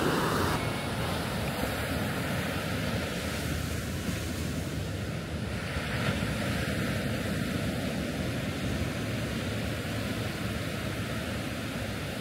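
Ocean surf washing on a beach: a steady rush of waves, with wind buffeting the microphone.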